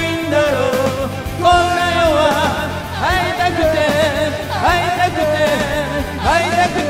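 Karaoke singing into a microphone over a rock band backing track, the voice bending and wavering on held notes.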